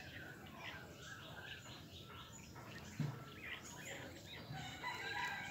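Birds chirping and calling in quick short notes, with a single low thump about three seconds in.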